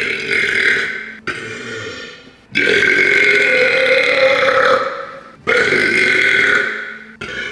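A person belching over and over, one belch straight after another with only short breaks between. The longest, in the middle, lasts about three seconds, and a new belch begins near the end.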